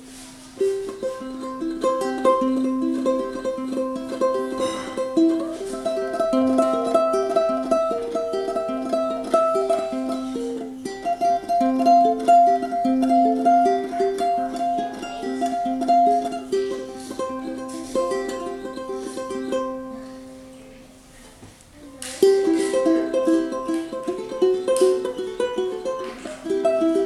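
Collings UT-1 mahogany tenor ukulele with Aquila strings, played solo: a plucked melody of single notes over a lower line. The playing dies away near the middle and picks up again a couple of seconds later.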